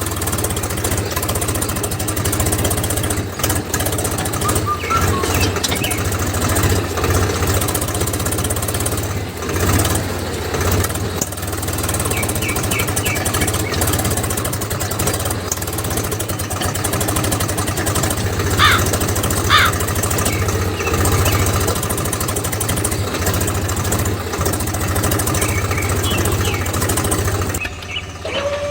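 A small motor running steadily with a low hum and light rattling, with two short squeaks about two-thirds of the way through.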